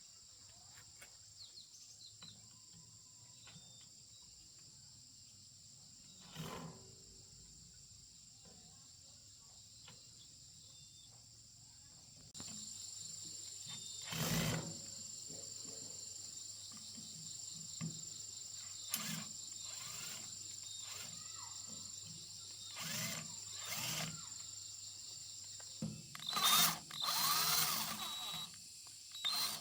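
Steady high insect drone with a string of short knocks and scraping noises. The loudest cluster comes near the end.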